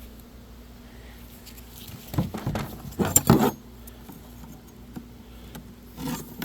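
Beehive equipment being handled while the hive is open: wood and plastic scraping and knocking in short clusters about two and three seconds in and again near the end. Underneath runs the faint steady low hum of the bees.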